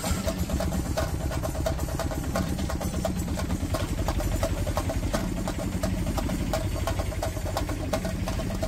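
An engine running steadily at idle, with a fast, even low pulsing.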